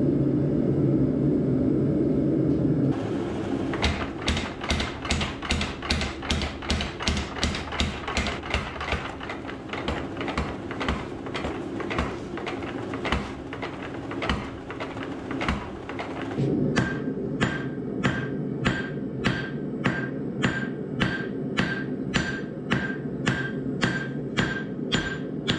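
A steady rushing noise, then, about three seconds in, a mechanical power hammer pounding a hot stainless san mai billet with rapid strikes for about thirteen seconds. From about sixteen seconds in, hammer blows on the steel over the anvil, ringing with a clear high tone, about two a second.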